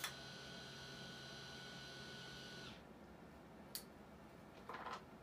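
Faint handling sounds as plastic wrap is wound around an oboe reed: a sharp click at the start, a small tick, and a brief soft rustle near the end. A steady electrical hum sits under it and cuts off about two and a half seconds in.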